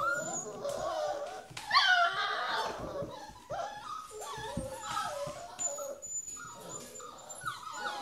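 Several cocker spaniel puppies whimpering and whining over one another, hungry for their breakfast. There is a loud high yelp about two seconds in.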